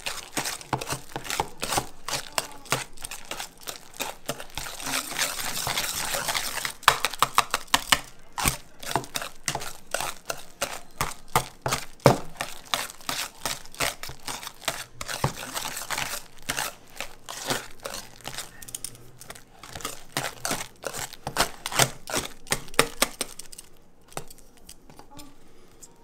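Wire whisk mashing boiled potatoes in a stainless steel bowl: rapid, irregular scraping and clicking of the wires against the steel.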